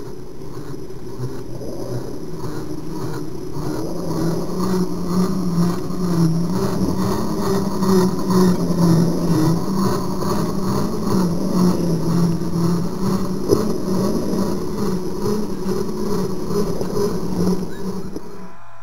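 Electric motor and gear whine of a radio-controlled scale rock crawler working over creek-bed rocks, getting louder as it passes close by, then cutting off suddenly near the end.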